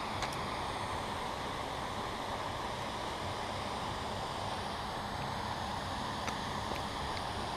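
Steady wind noise on the microphone, with a few faint clicks, one just after the start and several near the end.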